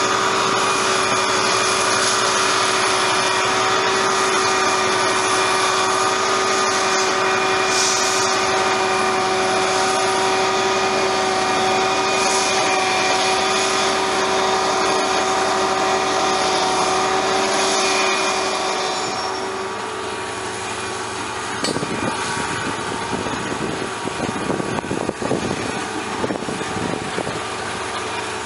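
GM GT22CW diesel-electric locomotive hauling a loaded freight train, its engine running steadily with a constant whine. About two-thirds of the way through it fades, leaving a rougher rumble with irregular knocks and clatter.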